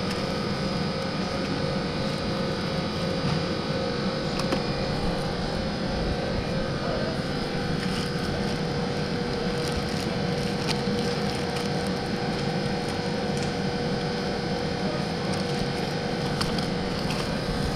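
Steady open-air market ambience: a continuous low rumble with a constant mid-pitched hum and a few faint clicks, with no clear voices.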